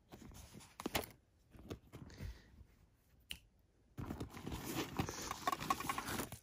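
Close-up rustling and handling noise of a hand rummaging through a rubber chicken purse and small pouches. There are a couple of sharp clicks in the first few seconds, then a burst of busy rustling and scraping as the hand digs into the purse.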